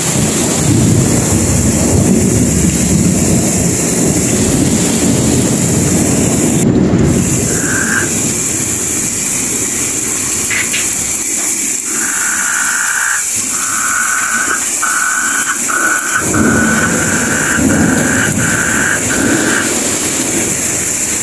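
Heavy tropical rain pouring steadily, with low rumbling thunder in the first several seconds and again near the end. From about halfway in, frogs call in a run of short, repeated notes over the rain.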